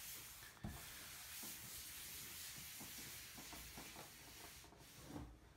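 Paper towel wiped across a smooth tabletop: a steady soft rubbing hiss that fades out about four and a half seconds in.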